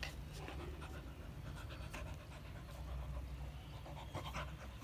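Black Labrador dog panting, a quick run of short breaths.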